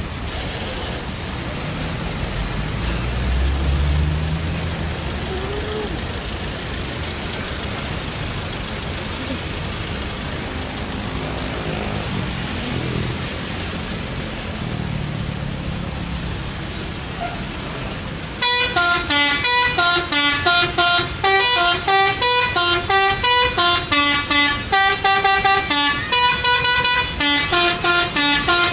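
Steady vehicle engine and traffic rumble, then, about two-thirds of the way in, the Garuda Mas SHD bus's telolet horn, a multi-tone air horn, plays a long, fast melody of short notes stepping up and down for about ten seconds.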